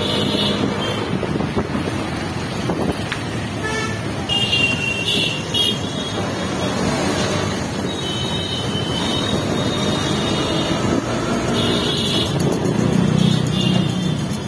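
Busy street traffic heard from a moving vehicle: a steady engine and road rumble, with high-pitched vehicle horns honking about six times, some short and some held for a second or more.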